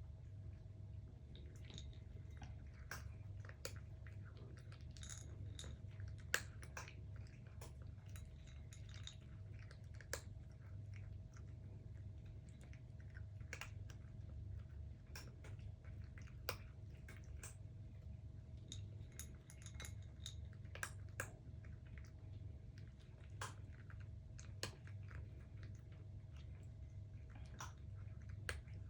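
Two Somali cats chewing their food, a scatter of small irregular clicks and crunches, over a low steady hum.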